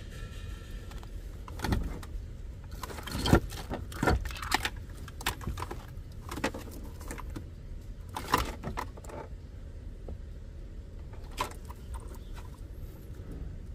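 Plastic plugs and RCA connectors of a car-stereo wiring harness clicking and rattling against each other as they are handled and sorted. The clatters are irregular, with the loudest a little after three seconds, around four seconds and around eight seconds.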